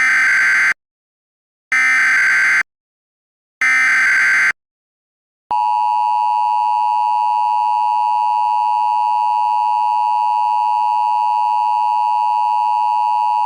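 Emergency Alert System header: three short identical bursts of SAME data tones, each just under a second long and about a second apart. About five and a half seconds in, a steady attention tone begins and holds.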